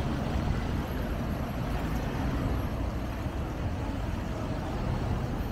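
Steady road-traffic noise from passing cars, a continuous low rumble with no single vehicle standing out.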